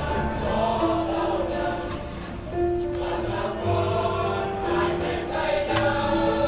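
Church choir singing a slow hymn in long held notes.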